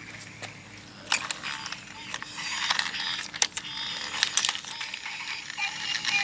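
Clattering plastic clicks and ratcheting from a battery-powered toy shark's wheel gearbox and casing as it is handled and turned over, with a short high electronic tone near the end.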